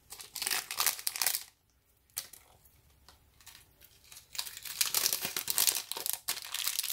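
Thin clear plastic bag crinkling and rustling as hands handle it: a burst of crinkling, a short pause, then scattered crackles building into steady crinkling for the last few seconds.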